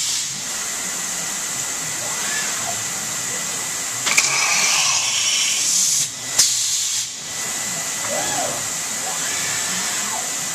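CNC stone router's spindle driving a diamond edge-profiling tool along a stone countertop edge under water coolant: a steady hiss with a thin, steady whine. Two sharp clicks come about four and six seconds in.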